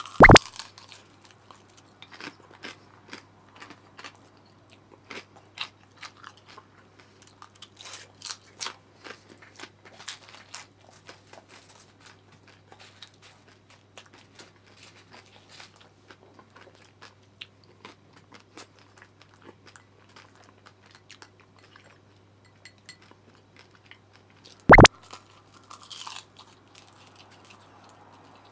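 Crisp, crunchy chewing of deep-fried gyoza, with many irregular crunches. Two loud knocks come, one just after the start and one near the end.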